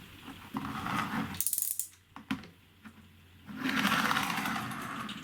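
3D-printed wind-up car's plastic gear train running and rattling in two spells with a quiet gap between, its wheels spinning and slipping instead of gripping.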